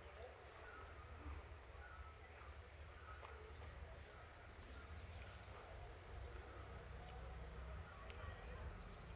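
Faint insect chorus: a steady high-pitched drone, with a few faint short chirps and a low rumble underneath.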